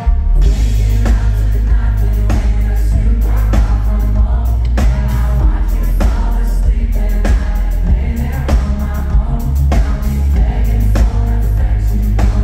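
Live pop band playing, with the singer's vocal over it. Heavy bass and drums come in together right at the start, then hold a steady beat under the sung melody.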